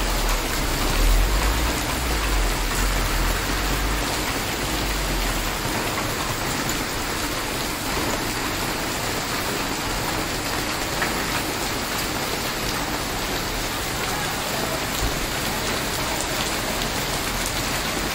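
Heavy rain pouring onto a wet paved street, a steady dense hiss of drops and splashing, with a low rumble during the first few seconds.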